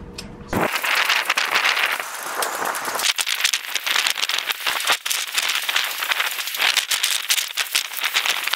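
Marker pen drawn along the bow thruster tunnel tube to mark it for trimming: a dense, scratchy crackle of rapid small clicks, starting abruptly about half a second in.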